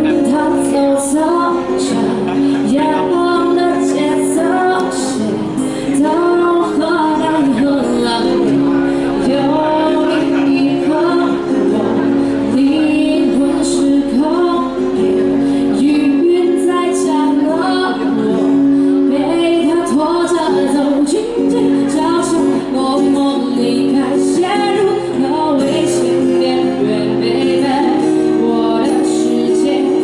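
A woman singing a pop song into a microphone, accompanied by two acoustic guitars playing chords, amplified through a small busking amp.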